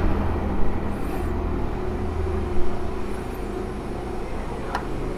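A motor vehicle's engine running steadily, fading somewhat after about two and a half seconds.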